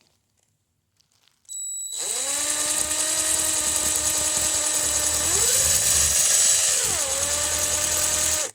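Power drill with a 5/16 nut-driver bit spinning a length of all-thread rod. A faint high whine comes as the trigger is first pressed, then the motor runs steadily for about six seconds. It speeds up around the middle and eases back before stopping.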